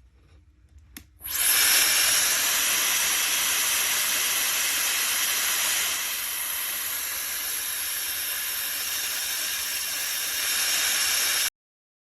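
Shark FlexStyle HD430 hair dryer switched on with a click, then running with a steady rush of air and a high whine. It drops slightly in level about halfway through and cuts off abruptly near the end.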